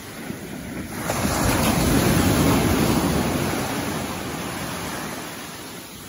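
Small waves breaking and washing up the beach. The surge swells about a second in and slowly fades away over the next few seconds.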